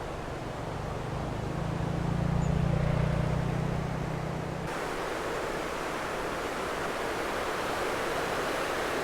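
Heavy river water rushing through a weir, a steady roar of flowing water. A low hum swells under it and stops suddenly about halfway through, leaving the rush brighter and fuller.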